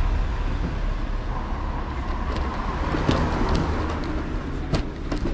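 Mobility scooter driving along: a low, steady rumble with a faint electric motor whine, and two sharp knocks near the end.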